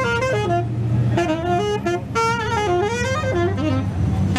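Live blues band playing, with a saxophone carrying a melodic lead line of stepping, bending notes over a steady low bass.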